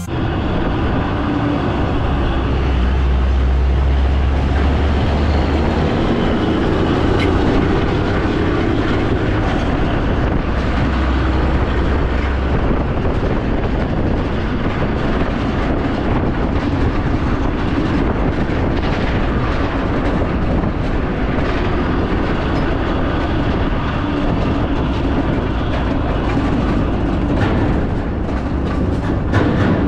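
A vehicle on the move: a steady low rumble with road noise and many small rattles and clicks.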